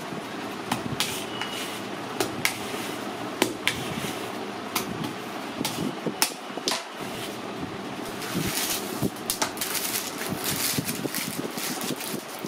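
Metal spatula working cream on a hard work table, with irregular light clicks and knocks that come more often in the second half, over a steady background hum.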